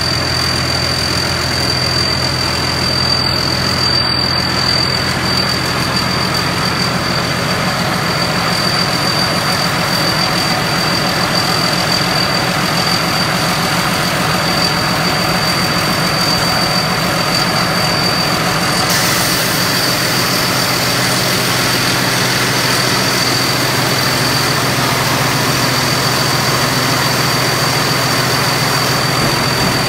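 Deaw Thornong 4.0 combine harvester's diesel engine running steadily, with a thin, constant high whine over it. About two-thirds of the way through, a hiss in the upper range gets louder.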